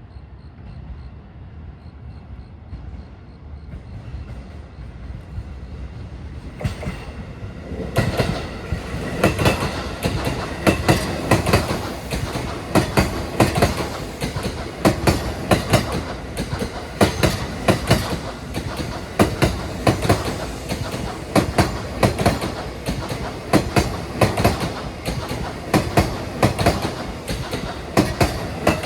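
A JR E233 series 3000 electric multiple-unit train of two coupled sets, approaching with a rising rumble and then passing over rail joints. From about eight seconds in, its wheels clack over the joints in a long, fast run of repeated clacks.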